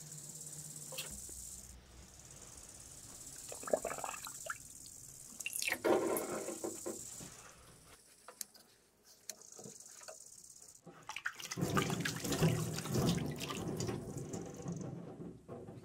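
Water running from a workshop tap, then dripping and splashing as a soaked cloth is wrapped and pressed down over a sharpening stone in its wooden holder. The loudest rubbing and splashing comes about three-quarters of the way in, while the wet cloth is pressed flat.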